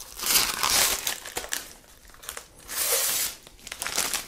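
Clear plastic bag crinkling as a hard drive dock is pulled out of it, in two main bouts of rustling, about half a second in and again around three seconds in.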